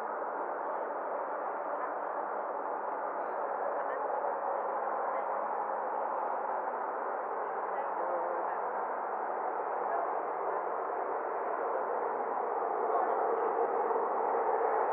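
Air traffic control radio channel with nobody transmitting: a steady hiss of radio static, thin and narrow like a phone line, growing a little louder near the end.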